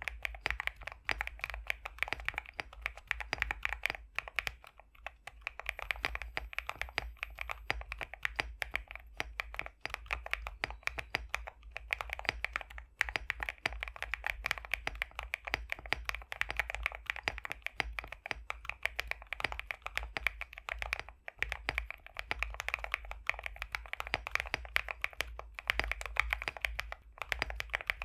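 Fast, continuous typing on an Epomaker x Createkeebs High65 v2 custom mechanical keyboard with pre-lubed BSUN X linear switches, a dense run of keystrokes broken by a few brief pauses.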